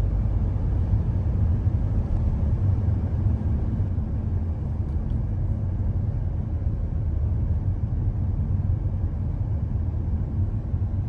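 Steady low rumbling noise with no clear pitch or rhythm.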